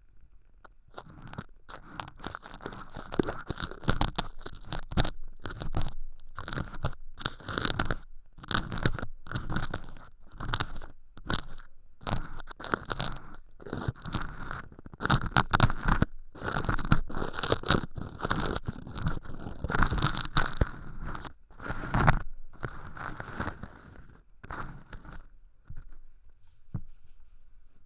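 Earpick scraping and crunching thin, crispy sawdust-like fake earwax flakes that crumble as they are touched. It comes in irregular bursts of crackly scratching with short pauses, and grows sparser near the end.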